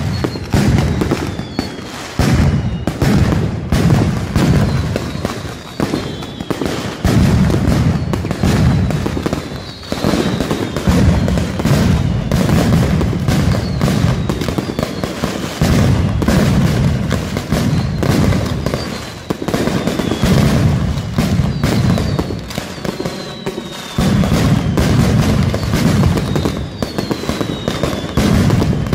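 Mascletà firecrackers exploding in dense, rapid rolls of bangs that surge and ease every couple of seconds. Falling whistles from whistling fireworks cut through every few seconds.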